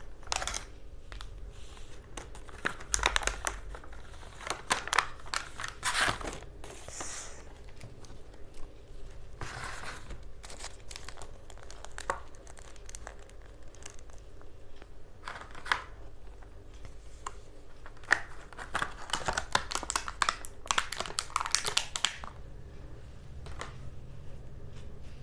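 Clear plastic packaging of a toy eraser set crinkling and rustling as it is opened and handled, in irregular bursts with quieter gaps between.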